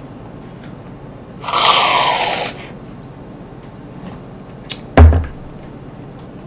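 Aerosol whipped-cream can sprayed once, a loud hiss lasting about a second. About five seconds in comes a single heavy thump, the loudest sound.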